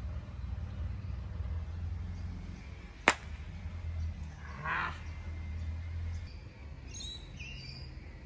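A gateball mallet strikes a ball once, a single sharp crack about three seconds in. Birds call afterwards, one caw-like call and then some short chirps near the end.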